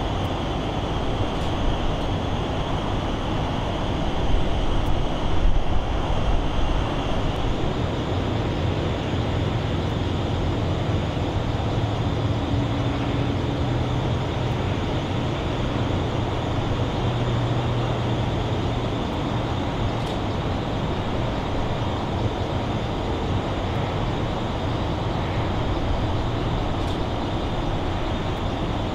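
Boeing 787 Dreamliner's jet engines idling as it taxis and lines up on the runway: a steady rumble, a little louder about four seconds in, with a low hum through the middle.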